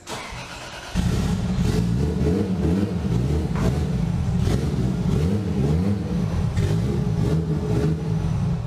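Car engine revving up and down over and over, its pitch rising and falling in quick swings. It starts abruptly about a second in and cuts off suddenly at the end.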